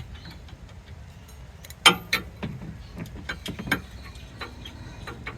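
Sharp metallic clicks and clinks from a socket wrench working the underbody bolts of a Suzuki Jimny. The loudest strike comes a little under two seconds in, and a few irregular clicks follow over the next two seconds.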